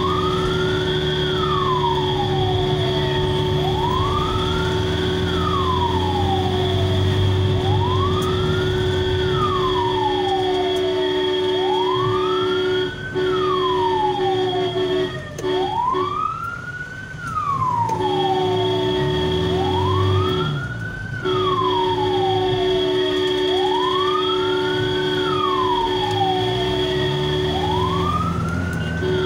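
An ambulance's electronic wail siren heard from inside the cab. Each cycle rises quickly, then falls more slowly, and the pattern repeats about every four seconds. Under it run a steady tone and the vehicle's engine rumble.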